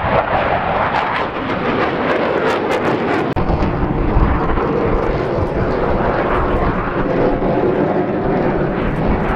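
Twin-engine F/A-18 Hornet fighter jet flying past high overhead: a loud, steady jet roar.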